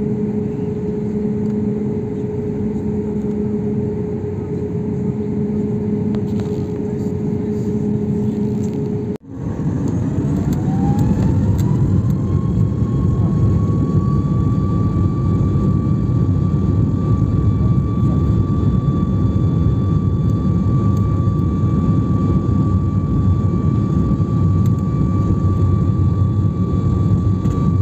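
Cabin noise of a Boeing 737's turbofan engines over the wing: a steady taxi hum with a low tone, then, about a third of the way in, the engines spool up for the takeoff roll, a whine rising for about two seconds and then holding steady over a louder rumble.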